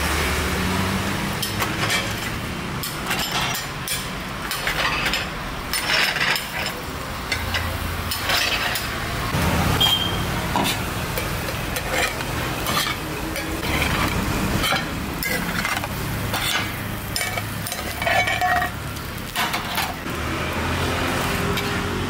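Steel lids and utensils clinking and knocking against small dosa pans over gas burners, in scattered strokes, with batter sizzling on the hot pans. A low hum of street traffic runs underneath.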